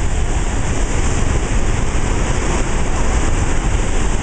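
Water pouring through the open spillway gates of Gavins Point Dam and churning in the basin below: a loud, steady rushing of white water with a heavy deep rumble.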